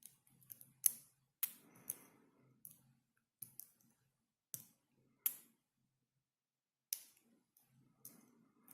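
Dimple pick working the pins of an ISEO R6 euro dimple cylinder: about a dozen sharp, short metallic clicks at irregular intervals as the pick lifts the pins and pins click when they set.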